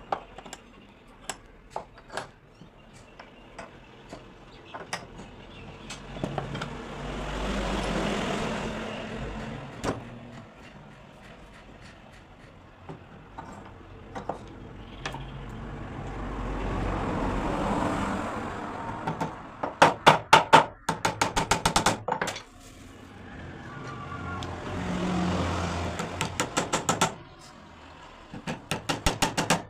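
Three vehicles pass by, each one swelling and fading over a few seconds. Between them come quick runs of sharp tapping, the loudest sounds.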